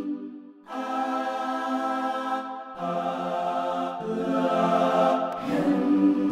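Logic Pro X's 'South African Singers' sampled-choir instrument playing held, wordless choral chords that change several times. The vowel is shifted while playing to make the voices sound like they sing "Ah-laah-him" (Elohim).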